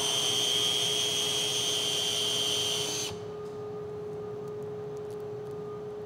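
Cordless drill driving a StripMeister Original wire stripper, its motor giving a steady high whine as 12 AWG cable is pulled through and stripped. The whine cuts off about three seconds in, leaving a lower steady hum.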